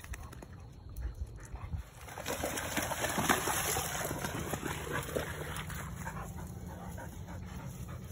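A Labrador retriever moving about, with a stretch of broad rushing noise beginning about two seconds in that peaks and then fades over the next few seconds.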